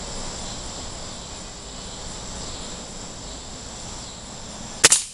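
Crosman Blaze XT .177 nitro-piston break-barrel air rifle firing once near the end, a sudden sharp shot with a second click right after it. Beneath it, a steady high insect drone.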